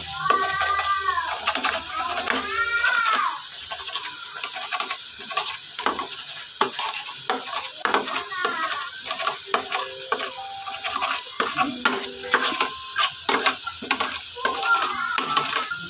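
Egg frying in oil in a small metal pan: a steady sizzle, with a metal spatula scraping and tapping against the pan as the egg is stirred and scrambled.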